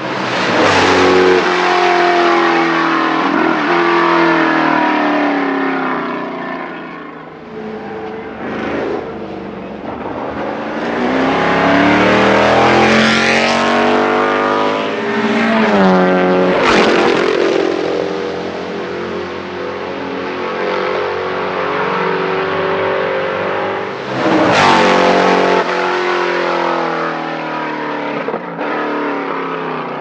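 Racing car engines at high revs, several cars accelerating and passing one after another. The pitch climbs steeply through the revs near the middle, with loud passes about a second in, just past halfway and about three quarters through.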